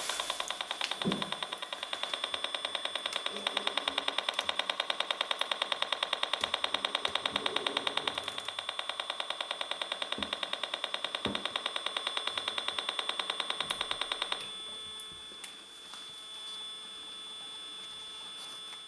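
An Esmog Spion high-frequency detector's speaker turns a Wi-Fi router's pulsed beacon signal into a rapid, even buzzing rattle over a steady high whistle. The pulsing gets louder about three seconds in, and a couple of knocks come as the router's shielding sleeve is handled. About fourteen seconds in the pulsing stops suddenly, leaving only the steady whistle.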